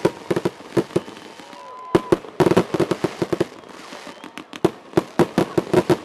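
Aerial fireworks bursting overhead: volleys of sharp cracks and bangs from crackling star shells, coming in dense clusters with short lulls between them.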